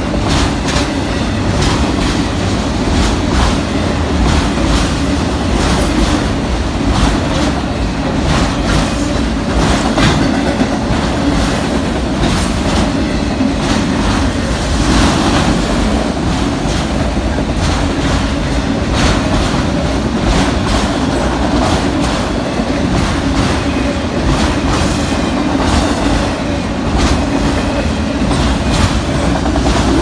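Auto rack freight cars rolling past at speed: a steady, loud rumble with the wheels clacking irregularly over the rail joints.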